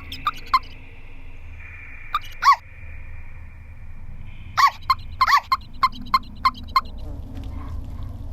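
Rubber balloon squeaks from a Foley track: short rubbery chirps that rise and fall in pitch. A few come in the first seconds, the loudest about two and a half seconds in, then a quick run of about eight. Under them run a faint steady high tone and a low hum.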